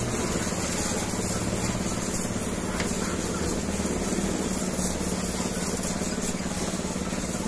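Pressure washer running steadily, its pump hum under the continuous hiss of the water jet spraying onto the motorcycle's underside.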